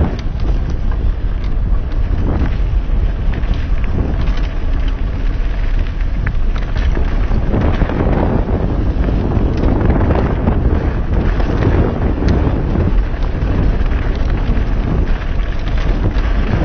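Wind buffeting a helmet-mounted action camera's microphone on a moving mountain bike, with dirt-trail tyre noise and short clicks and rattles from the bike mixed in.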